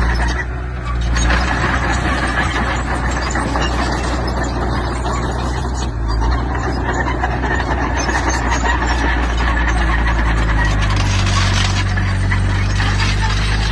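Diesel earth-moving machinery working in stone: a steady low engine note under a dense metallic clatter and rattle. There is a brief dip about half a second in, and the engine note grows stronger about eleven seconds in.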